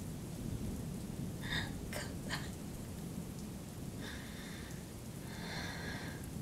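Steady rain-and-thunder storm ambience, a low rumble with rain hiss over it. A few brief breathy sounds come about a second and a half in, and again around four and five and a half seconds.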